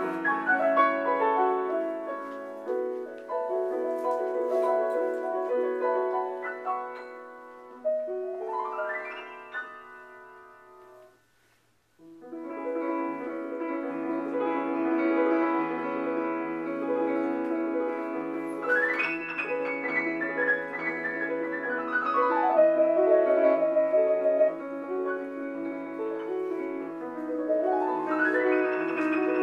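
Solo piano playing, with fast runs sweeping up the keyboard about nine seconds in, again around nineteen seconds and near the end, and one sweeping back down. The playing dies away to a brief pause about eleven seconds in, then comes back loud and full.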